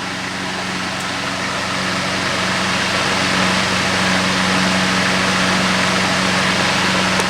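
Emerson type 28646 12-inch table fan with brass blades running on low speed: a steady hum from its shaded-pole motor under an even whoosh of moving air, growing a little louder over the first few seconds. It runs smoothly without shaking, its blades in good balance.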